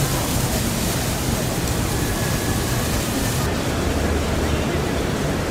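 Steady rushing noise of a busy city street, traffic and wind, with faint voices of passers-by. The hiss dulls abruptly about three and a half seconds in.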